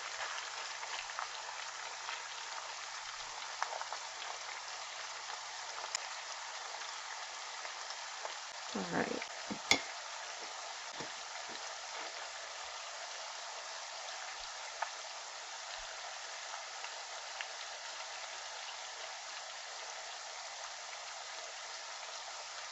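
Pork pieces sizzling steadily as they fry in hot vegetable oil in a pot, browning. A few faint clicks and a brief knock about ten seconds in.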